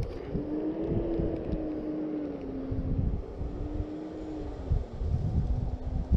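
Spinning reel being cranked to reel in line, its gears giving a steady hum that wavers slightly in pitch and breaks off briefly near the end, over wind rumbling on the microphone.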